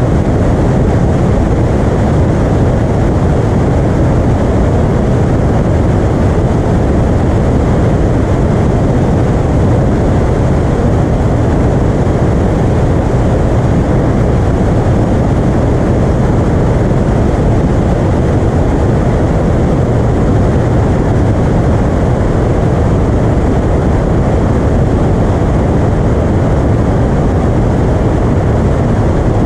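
Piper Arrow light single-engine airplane's piston engine and propeller running steadily: a loud, unbroken low drone with no change in pitch or level.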